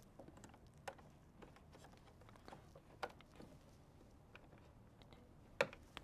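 Faint clicks and knocks of an HDMI cable plug being handled and pushed into the HDMI input on the back of a Logitech Rally Bar Mini video bar, with three sharper clicks spread through, the loudest near the end.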